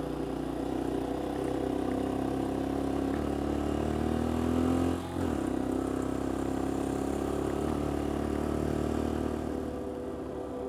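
Motorcycle engine running under way, revs climbing over the first few seconds, then a brief drop about five seconds in as it shifts up a gear, followed by steady running that gets a little quieter near the end.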